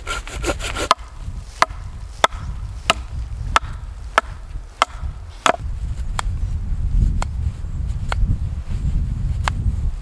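A small hand saw cutting through dry deadwood, each stroke giving a sharp woody click about every two-thirds of a second. About halfway through the strokes thin out to a few scattered cuts over a low rumble.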